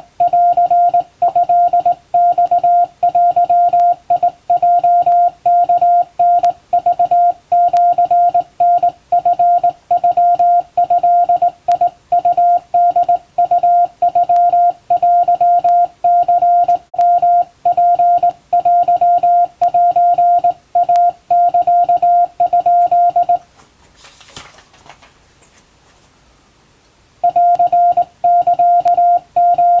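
Japanese wabun Morse code sent by hand on a straight key, heard as a steady mid-pitched beep keyed on and off in dots and dashes. About three quarters of the way through, the sending stops for about four seconds, with only a brief faint noise, then resumes.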